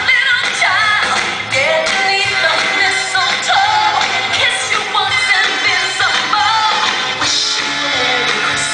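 Recorded pop music with a sung vocal line over a steady beat, played loud for a troupe's dance performance.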